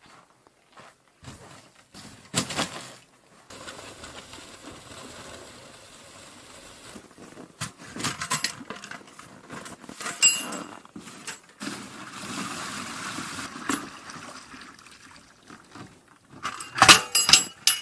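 Aluminium milk can handled in the open: scattered metal clanks and knocks as it is carried and set down, then water splashing as it is poured into a plastic tub, with a loud cluster of clatter near the end.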